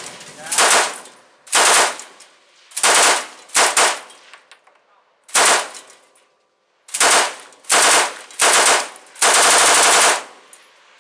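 Belt-fed machine gun firing a series of about nine short bursts with brief pauses between them, the last burst near the end the longest at about a second.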